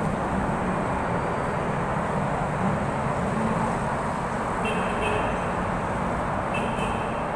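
Steady rumble of road traffic, with two short high tones about two seconds apart near the end.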